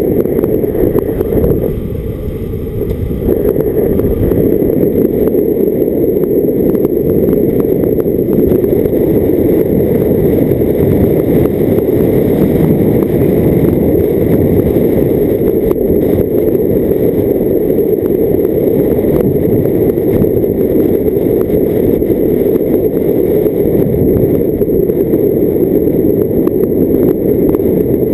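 A car driving along a narrow road, heard from a camera mounted on its bonnet: a steady, loud rumble of engine and tyre noise with wind buffeting the microphone, easing briefly about two seconds in.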